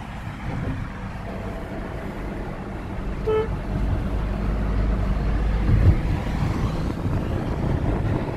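Road and engine noise inside a moving Suzuki car's cabin, a low rumble that grows louder a few seconds in. A short car horn toot sounds about three seconds in, and a thump comes near six seconds.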